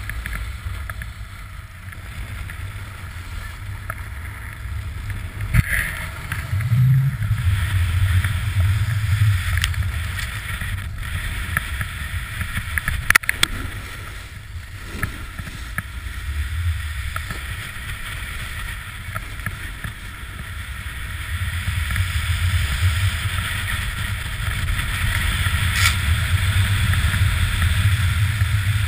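Snowboard sliding and carving over groomed snow, a steady scraping hiss that swells toward the end, with wind buffeting the pole-mounted action camera's microphone as a low rumble. A few sharp knocks, about six seconds, thirteen seconds and twenty-six seconds in.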